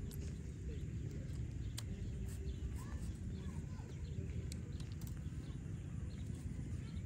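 Outdoor ambience: a steady low rumble with a few faint short chirps and scattered light ticks.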